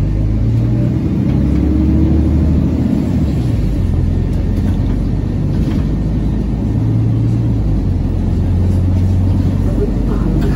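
Mercedes-Benz Citaro city bus heard from inside the passenger cabin while driving: a steady low drive drone whose pitch rises over the first few seconds as it gathers speed, then shifts again partway through.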